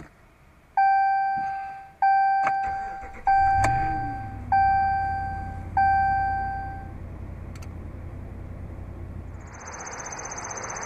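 Five warning chimes from a 2014 Ram 1500's instrument cluster, about one every 1.2 seconds, while the 5.7-litre Hemi V8 is cranked and catches about three and a half seconds in, swells briefly and settles into a steady idle. Near the end the engine sound gives way to a steady outdoor noise with a high buzzing tone.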